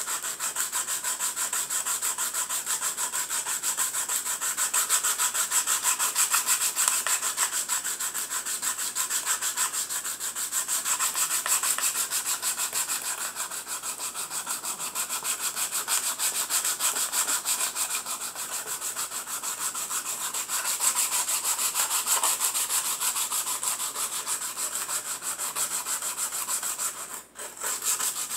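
Sandpaper rubbed by hand over a small wooden dollhouse stove part in rapid, steady back-and-forth strokes, with a short pause about a second before the end.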